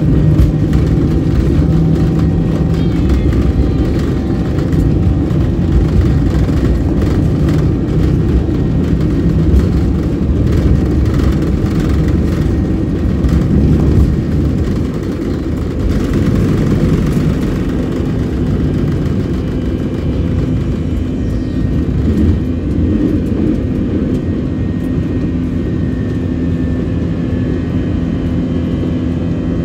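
Airbus A321 jet engines at takeoff thrust heard from inside the passenger cabin, over the rumble of the wheels on the runway. About halfway through the rumbling eases as the aircraft lifts off, leaving a steady engine drone with a low hum.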